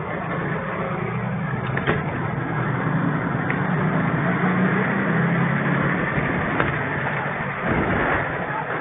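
A vehicle engine running steadily under a constant rushing noise of strong wind.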